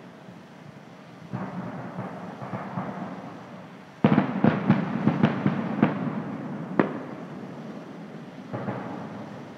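Aerial fireworks going off: a smaller round of crackling early on, then a sudden loud burst about four seconds in followed by a quick run of sharp crackling pops, and another smaller burst near the end.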